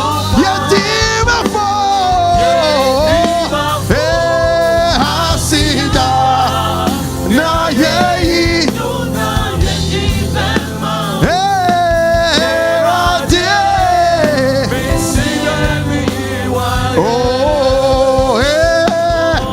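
Live gospel praise music: a singer's voice over a band with a steady beat.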